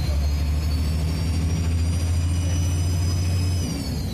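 Trident 2 double-decker bus pulling under power: a deep engine drone with a high, steady turbocharger whistle over it. Near the end the engine note drops and the turbo whistle starts to fall in pitch.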